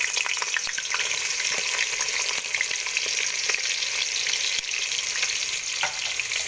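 Finely chopped onions, just added to hot cooking oil in a large pot, sizzling steadily with many small crackles as they start to fry.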